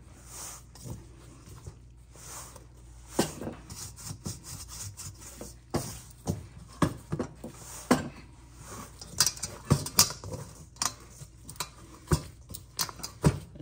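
Gloved hands kneading and squeezing a soft flour-and-water dough in a metal mixing bowl: irregular soft squishes and rubbing, with sharp knocks now and then as hand or bowl strikes the metal.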